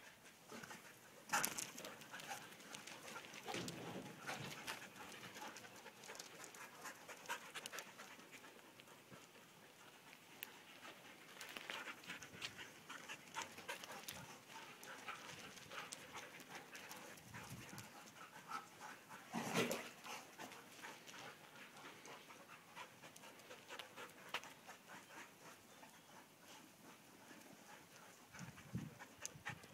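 Dogs panting hard while playing, with irregular scuffling of paws in loose soil. Two louder short bumps stand out, about a second and a half in and about two-thirds of the way through.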